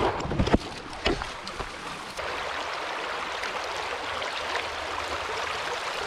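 A few knocks and scuffs in the first second or so, then, from about two seconds in, the steady rushing of a creek.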